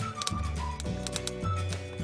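Background music: a short tune that steps down in pitch over held bass notes, repeating about every two seconds.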